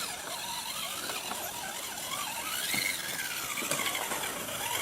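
Electric motor and gearbox of an RC rock-crawler truck whining, the pitch wavering up and down with the throttle as it crawls.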